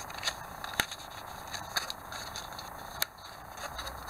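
Stiff card envelope being folded and handled, rustling and scraping with a few sharp clicks.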